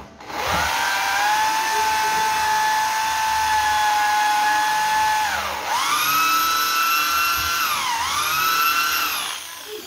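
Handheld electric power tool motor spinning up to a high, steady whine. It is let off and run up again about five and a half seconds in, dips briefly near eight seconds, and stops just before the end.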